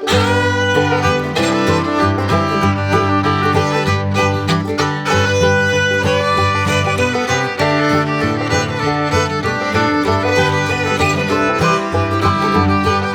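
Background music: an upbeat bluegrass tune with fiddle, banjo and guitar.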